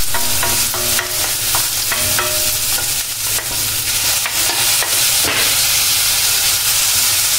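Chopped onions sizzling in hot oil in a kadai, with a wooden spatula scraping and stirring them in short strokes. Chopped tomatoes are tipped in about halfway through, and the sizzling and stirring go on steadily.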